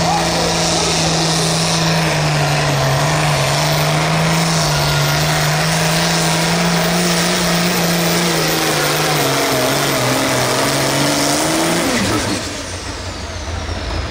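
Turbocharged International pulling tractor's diesel engine at full throttle, dragging a pulling sled, with a very high turbo whine over it. The engine pitch holds, then sags as the load builds, and the engine note drops away about twelve seconds in while the whine winds down.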